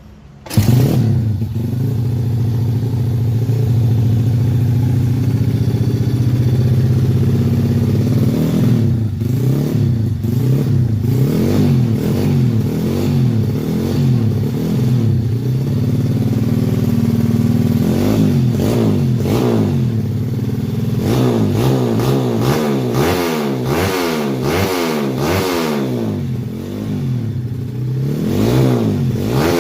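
Stock underbone motorcycle engine running, first at a steady idle, then revved over and over with quick throttle blips that rise and fall in pitch, coming faster in the second half.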